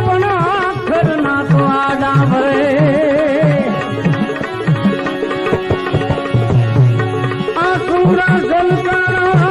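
Instrumental interlude of a Gujarati bhajan: tabla plays a rhythm of deep bass strokes under a sustained melody line with a wide, wavering vibrato.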